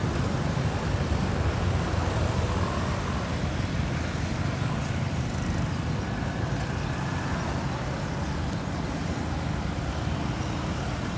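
Steady rumble of street traffic, motorbikes and cars passing on the road, with no single vehicle standing out.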